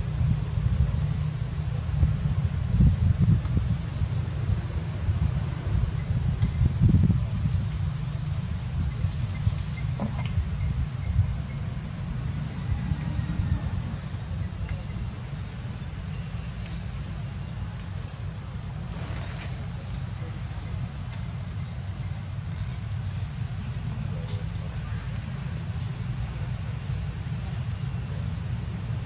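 Steady, high-pitched drone of insects in the forest, one unbroken tone, over a low rumble that is strongest in the first several seconds.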